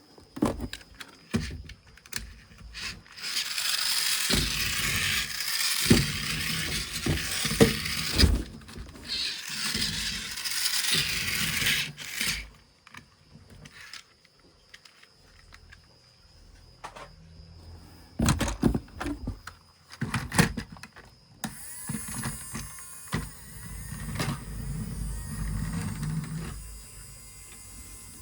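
Toy vehicles and their packaging being handled: scattered clicks and knocks, two long spells of crinkling rustle in the first half, and a steadier low whirring rumble in the last third.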